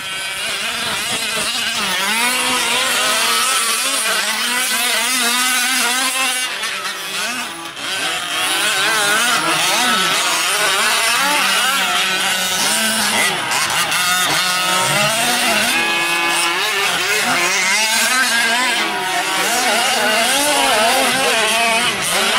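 Several gas-powered 1/5-scale RC trucks' small two-stroke engines racing together, an overlapping high buzz whose pitch rises and falls constantly as each is throttled up and down.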